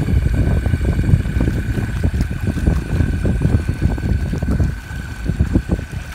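Wind rumbling on the microphone and water rushing along the hull of an inflatable kayak under way, with a thin steady whine from its electric motor.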